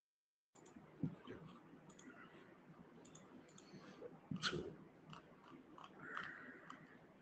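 Dead silence for the first half second, then faint room tone with scattered small clicks and soft handling noises; the sharpest clicks come about a second in and around the middle.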